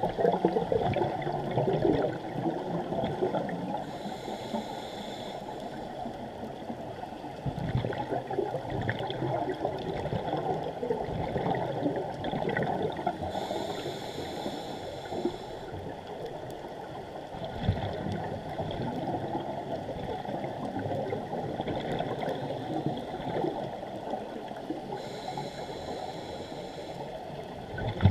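Muffled underwater sound from a diver's GoPro camera in its waterproof housing: a continuous low gurgling of water and scuba bubbles. A brief higher hiss comes three times, about ten seconds apart, with the diver's breathing.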